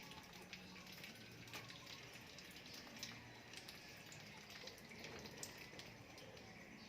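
Faint ambience of scattered light ticks, like drips, over a low steady hum.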